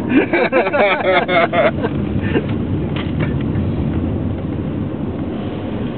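Steady road and engine noise inside a moving car's cabin, with a voice talking over it for the first couple of seconds.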